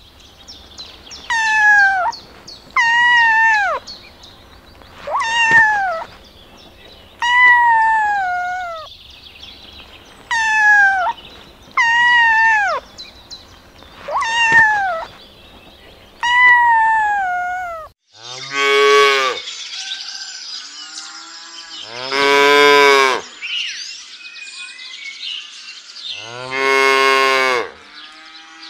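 Kittens meowing: eight high mews, each falling in pitch, about two seconds apart. About eighteen seconds in, cattle take over with three long, low moos.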